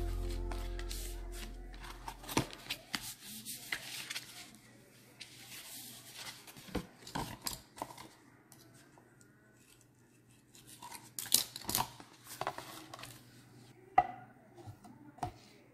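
Paper milk carton being handled and flattened on a stone countertop: rustling and crinkling with scattered sharp clicks and taps, the loudest a cluster about eleven seconds in and a single click near fourteen seconds. Background music fades out in the first two seconds.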